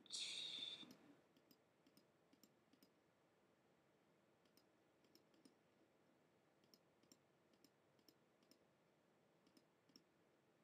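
Faint, irregular computer mouse clicks while browsing through files, a few clicks at a time with gaps between. A short hissy burst, like a breath, in the first second is the loudest sound.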